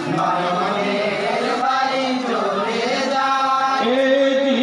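Men's voices chanting a Bengali jari gaan (Muharram lament song) in unison. The singing is in long held lines that bend in pitch and settles into a sustained note near the end.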